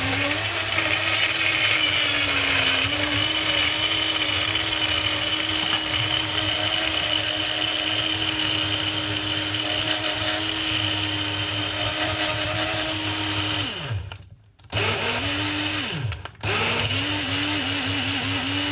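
Single-serve personal blender crushing ice into a protein shake, its motor running at a steady pitch with the ice rattling in the cup. It runs for about fourteen seconds and winds down, then is pulsed on again twice near the end to finish off the ice.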